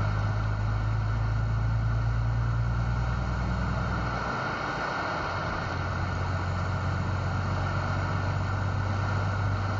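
Steady vehicle engine and road noise: a low hum over an even hiss. The lowest part of the hum drops away about four seconds in.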